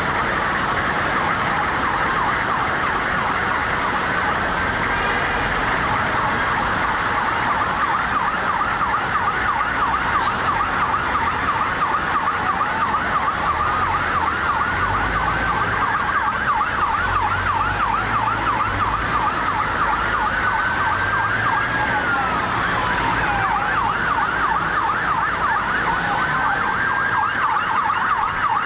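Several emergency vehicle sirens sounding at once, slow rising-and-falling wails overlapping with a fast yelp that runs throughout.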